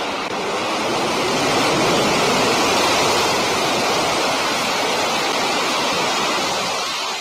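New Shepard booster's BE-3 hydrogen-oxygen rocket engine firing during the landing burn: a loud, steady roar of rushing noise that begins to fade near the end.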